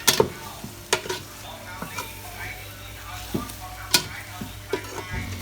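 Food frying in a pan, sizzling as it is stirred, with a metal utensil clinking sharply against the pan several times.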